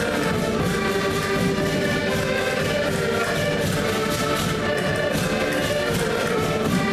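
Portuguese folk ensemble playing live: several diatonic button accordions carry the tune over a steady beat on a bass drum.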